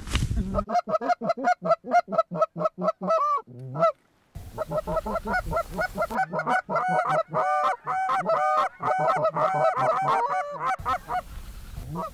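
Canada geese honking in a quick, repeated run. The honking drops out briefly about four seconds in, then comes back as many overlapping honks.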